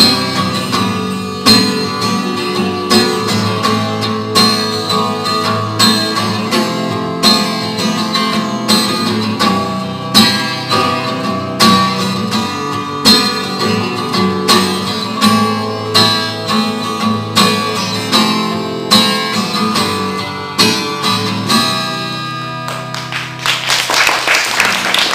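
Acoustic guitar strummed in a steady rhythm, an instrumental passage with no singing. Near the end the sound grows denser and noisier.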